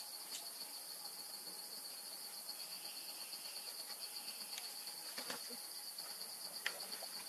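Forest insects trilling in a steady, high-pitched, fast-pulsing chorus. A few light knocks of wooden poles being handled can be heard, the clearest about five seconds in and again near the end.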